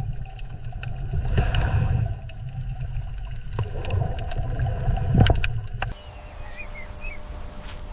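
Underwater water noise: a low rumble with scattered clicks that changes suddenly about six seconds in to a quieter hiss with a few faint chirps.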